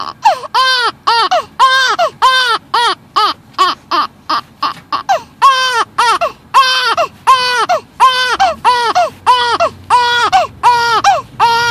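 Infant crying in a steady run of short, clipped cries, about two a second, each one arching up and falling back in pitch: a rhythmic 'ah, ah, ah' like The Count's laugh.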